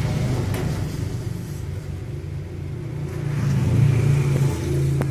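Low, steady mechanical rumble that swells about three to four seconds in.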